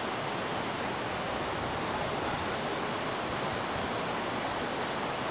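Floodwater rushing along a street: a steady, even rush of moving water.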